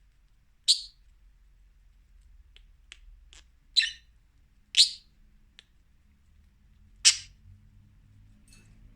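Budgerigar giving short, sharp chirps, four loud ones spread over several seconds with a few fainter clicks between, sped up to double speed.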